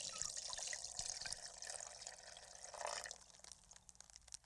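Faint water dripping and trickling, with small ticks and plinks, dying away near the end.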